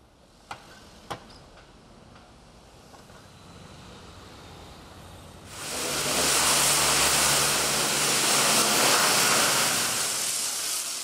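High-pressure car-wash wand spraying water onto a car's body: a loud, steady hiss that starts abruptly about five and a half seconds in and cuts off near the end. Before it come two sharp clicks about half a second apart and a faint hiss.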